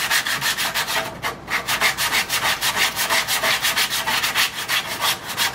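Hand sanding of a wooden board's curved end with ordinary sandpaper: quick, even back-and-forth rubbing strokes, about five a second, with a brief pause about a second in.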